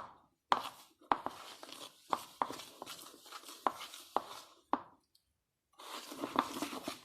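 Hands kneading and stirring a sticky homemade slime of dish soap and flour, giving a run of sharp snaps and crackles, with a denser patch of rustling near the end.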